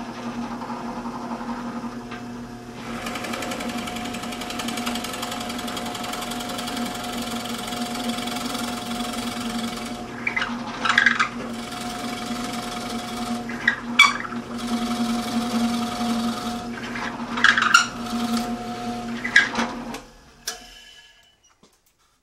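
Drill press running, its 1-inch Forstner bit boring into a seasoned 2x4: a steady motor hum with the cutting noise of the bit in the wood. There are several louder bursts in the second half as the bit is fed in, and the press winds down about 20 seconds in.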